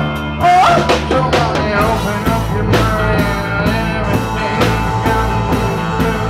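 Reggae band playing live: electric guitar, bass, keyboard and drums, with a singer's gliding voice line in the first second. The band fills out into a steady, regular beat about two seconds in.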